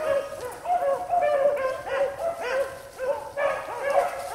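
A pack of beagles baying, many overlapping voices in continuous rising-and-falling howls: the hounds giving tongue as they run a rabbit's scent trail.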